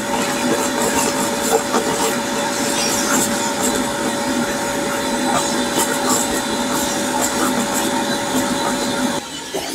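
VacMaster 5-gallon wet/dry shop vacuum running in dry mode with a steady motor whine, sucking up leaves and dirt with scattered ticks and rattles of debris in the hose. The sound drops away abruptly about nine seconds in.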